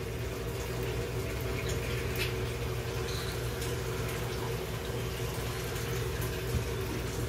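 Steady hum of aquarium pump equipment with water running through the tank system.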